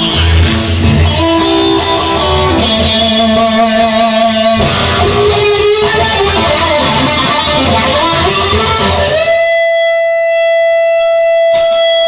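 Instrumental music led by guitar, with a single note held steadily from about nine seconds in.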